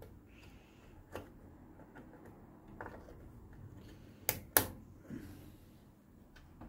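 Memory modules (RAM sticks) being pressed into motherboard DIMM slots, giving a few sharp plastic clicks as the slot latches snap shut. Two close snaps about four and a half seconds in are the loudest. The modules are being reseated after their contacts were cleaned, to cure a PC that powers on and off in a loop.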